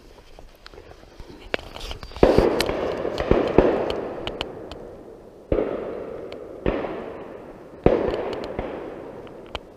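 Shotguns firing on a driven pheasant shoot: about six shots over several seconds, including a quick pair, each trailing off slowly in echo.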